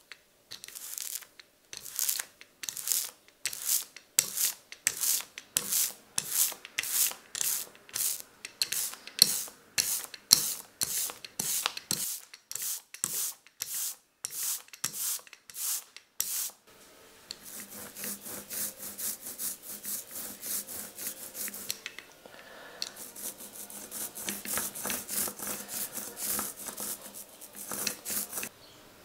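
Rhythmic rubbing strokes of a hand tool working a rubber printing block, about two a second, becoming denser and faster a little past halfway.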